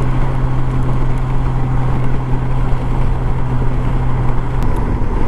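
Honda Gold Wing's flat-six engine running steadily while riding, a constant low hum over wind and road noise; the hum eases briefly near the end.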